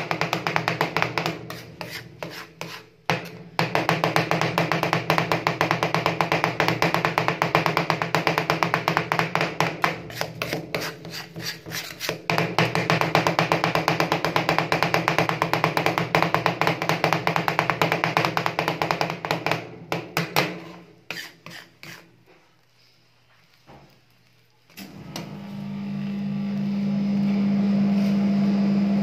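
Two metal spatulas rapidly chopping and scraping ice cream mix on a frozen steel cold plate, a fast clatter of many metal taps a second with short pauses. Near the end the chopping stops and a steady low hum sets in.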